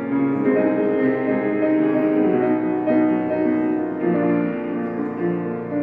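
Slow piano music with held notes that change about once a second.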